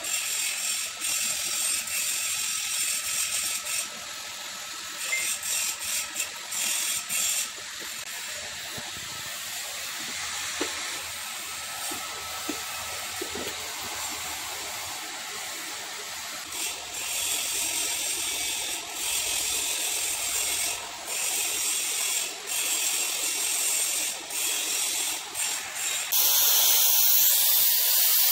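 Machine-shop lathe running, turning a screw shaft, with irregular clicking and ticking over a steady hiss. Near the end a louder, even hiss starts: the spray-welding torch coming on.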